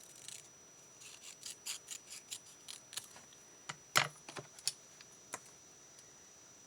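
Scissors snipping cardstock: a run of short, quick snips, then a louder knock about four seconds in and a few last clicks.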